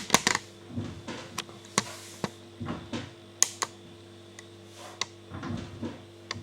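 Irregular sharp clicks and light knocks, about a dozen spread over several seconds, most densely in the first half-second: a hollow wooden sliding door, off its runner, being tried and rattled.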